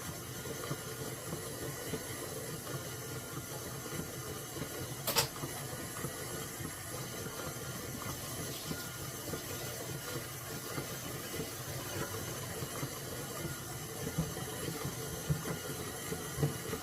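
Hands squishing and working a wet, sticky bread dough in a bowl, faint and steady, with one sharp click about five seconds in.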